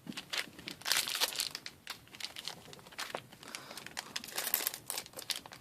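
Trading-card booster pack wrapper crinkling and tearing as the pack is opened, in irregular crackly rustles.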